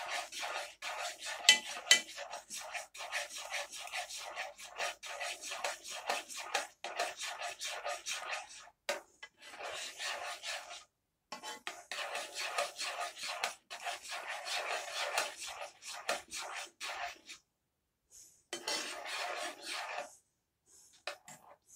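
Metal fork scraping round the bottom of a saucepan of tomato soup in quick strokes, several a second, stirring in a thickener. The stirring breaks off briefly twice, stops after about 17 seconds, then comes back in one short burst near the end.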